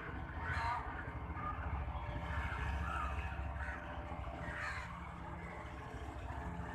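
Crows cawing several times, in short harsh calls, over a steady low rumble.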